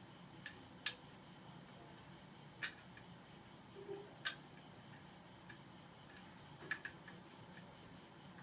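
Boshijie 16-inch mini ceiling fan running with a faint steady hum and irregular sharp clicks every second or two, which the owner puts down to blades that are not tight enough.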